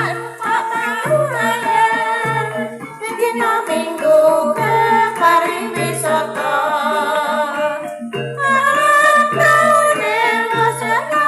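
A woman sings a Javanese song in wavering, ornamented phrases over gamelan accompaniment with a steady low beat about once a second.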